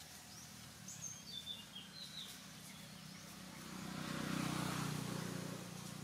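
Dry leaf litter rustling and crunching as macaques scuffle over a baby monkey, swelling loudest about four to five seconds in. A few short bird chirps sound in the background about a second in.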